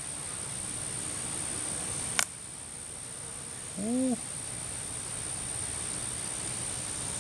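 Steady high-pitched drone of insects, with one sharp click about two seconds in as the boiled crawdad's shell is cracked and peeled by hand. About four seconds in comes a brief low sound that rises and falls in pitch.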